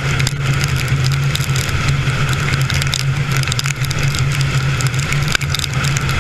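Inside a car being driven hard: a steady low engine and road drone, with rain pattering and ticking on the body and windshield.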